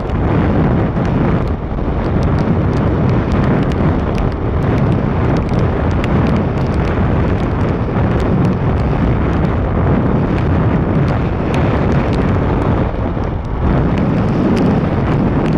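Steady road and wind noise from a vehicle driving on a wet highway, with tyres running on wet asphalt, sprinkled with many light ticks.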